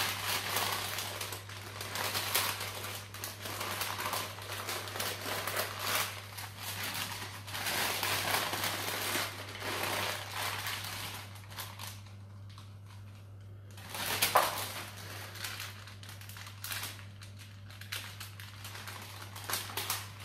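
Baking parchment rustling and crinkling as hands roll a sponge cake roll up inside it. Dense crackling for the first twelve seconds, a short pause, a sharp crinkle about fourteen seconds in, then sparser crinkles.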